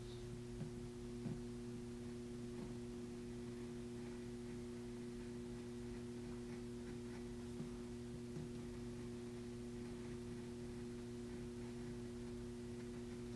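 Steady low electrical mains hum with a few faint, scattered ticks.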